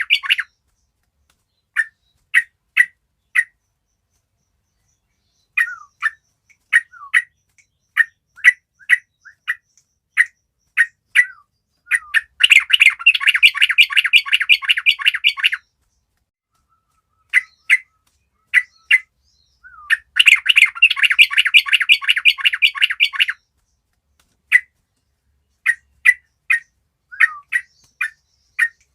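A group of yellow-vented bulbuls (trucukan) calling: short sharp notes, some dropping in pitch, every half second or so, broken twice by about three seconds of dense, fast chattering from several birds at once.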